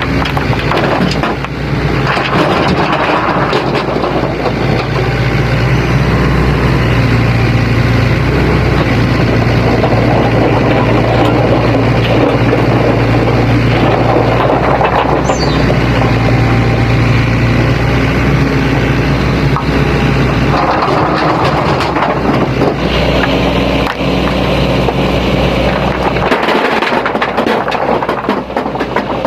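Sany SY75C excavator's diesel engine running under hydraulic load as it works, with a steady drone and swells of louder working noise every few seconds.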